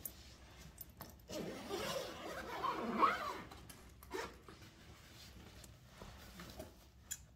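The zipper of a padded Fender guitar gig bag being pulled open, one long rasping zip from about a second in to about three seconds, then a few light knocks and rustles as the bag is opened.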